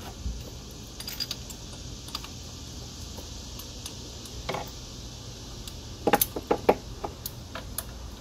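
Metal hand tools clinking and clicking as a spark plug socket and extension are worked onto a plug, with scattered light clinks and a quick cluster of sharp clicks about six seconds in.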